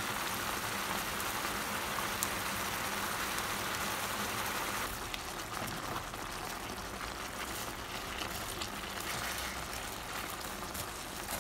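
Spicy chicken dakgalbi sizzling in a hot pan, a steady hiss that eases a little about five seconds in, with a few light clicks of metal tongs.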